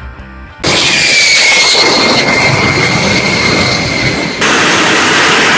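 A short run of guitar music cuts to a loud turbojet engine on a jet-powered vehicle: a roar with a high whine that sags slightly and then holds steady. The sound changes abruptly about four and a half seconds in.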